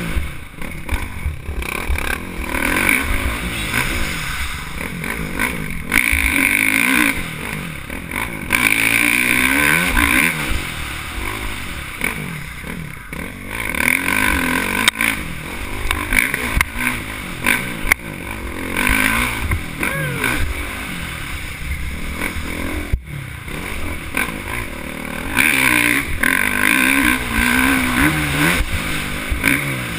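Dirt bike engine under hard riding, its pitch rising and falling again and again as the throttle opens and closes and the gears change, with loud surges every few seconds.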